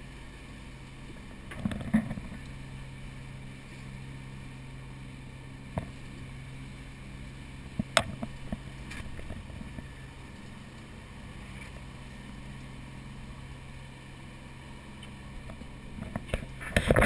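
A steady low hum, with a few scattered sharp clicks and knocks, the clearest about halfway through; louder handling noise builds near the end.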